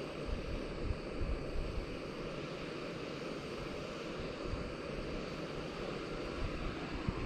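Backpacking gas canister stove burning steadily under a pot of water that is heating toward a boil, with wind buffeting the microphone now and then.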